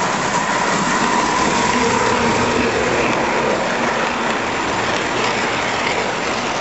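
Standard Gauge tinplate toy train running past on three-rail tinplate track: the steady rattle of its wheels on the rails and the hum of its electric motor.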